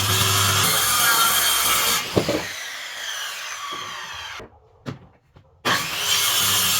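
Power tool cutting wood, with a steady motor hum under the cutting noise. About two seconds in there is a knock and the sound drops and winds down. After a short near-silent gap with a couple of light knocks, the cutting starts again abruptly near the end.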